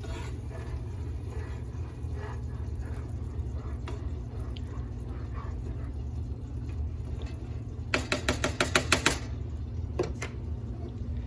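Instant rice being stirred into a saucepan of boiling water, with a steady low hum underneath. About eight seconds in comes a quick run of about ten sharp knocks lasting about a second, then one more knock shortly after.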